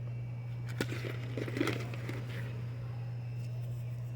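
Rustling and a few light clicks from handling packaging and small items, between about one and two and a half seconds in, over a steady low hum.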